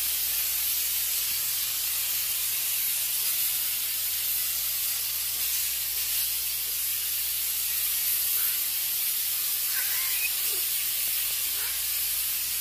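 Aerosol can of snow flocking spray hissing steadily as it is sprayed onto an artificial Christmas tree.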